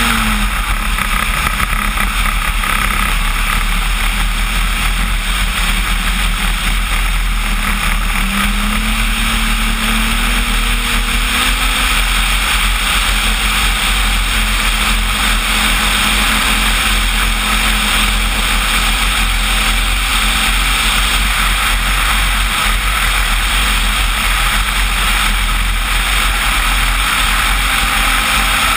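Radio-controlled Cessna 185 float plane's electric motor and propeller running steadily under power, heard from the onboard camera along with wind rushing over the airframe. The propeller's tone steps up slightly about eight seconds in and settles back a few seconds later.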